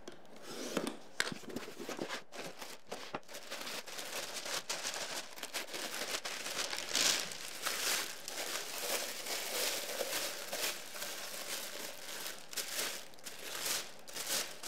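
A utility knife slits packing tape on a cardboard box in a few quick scrapes and clicks. Then white wrapping paper crinkles and crackles as a glass is unwrapped from it.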